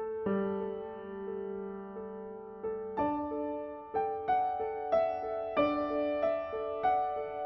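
Background piano music: a gentle melody of single struck notes left ringing, with the notes coming faster from about three seconds in.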